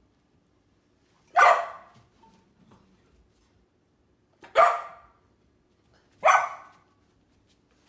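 Golden retriever puppy barking: three short, loud barks, the first about a second and a half in, then two more about three seconds and under two seconds apart.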